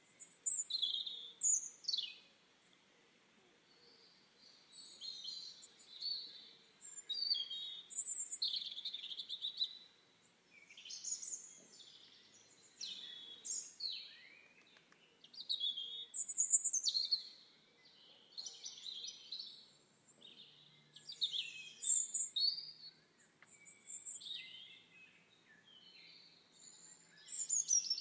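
Forest birdsong: songbirds singing in quick, high chirps and trills, one phrase after another with short pauses between.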